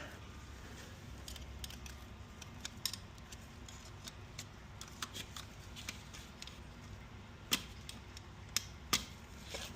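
Scattered light clicks and taps of a hand tool on metal transmission parts during teardown, with a couple of sharper clicks near the end, over a low steady hum.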